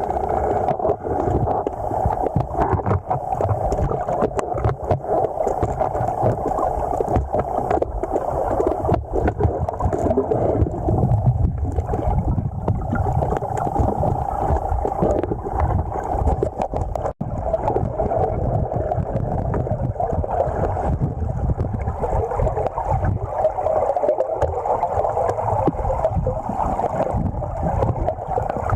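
Steady rushing and gurgling of river water close around the microphone, with scattered small clicks and knocks throughout.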